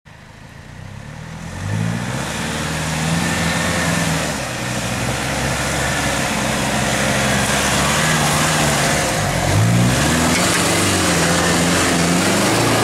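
A four-wheel-drive ute's engine revving up and down under load as it climbs a steep dirt track. It grows louder over the first couple of seconds as it comes closer, and is loudest as it passes close by near the end.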